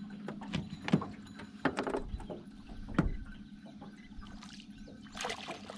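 Handling sounds in an aluminium jon boat as a fish is reeled in: a few sharp knocks and clunks, about a second in, near two seconds and at three seconds, over a faint steady low hum, with a short rustle near the end.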